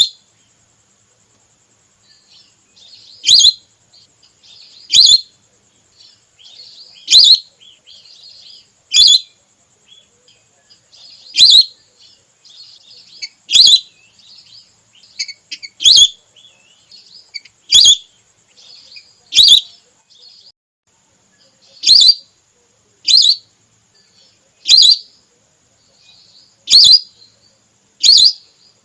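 Whistling duck (belibis) lure call, a female's call played for hunting: a loud, sharp, high whistle about every two seconds with softer twittering between, over a faint steady high hiss.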